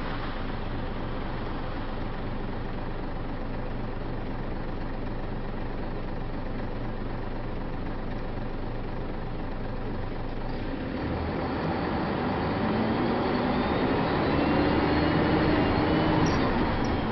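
DAF single-deck bus's diesel engine heard from inside the passenger saloon, idling steadily, then pulling away about eleven seconds in, the engine note rising and getting louder as the bus accelerates.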